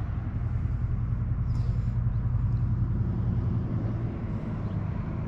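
Steady low rumble of a vehicle engine. It grows a little stronger after about a second and eases off near the end.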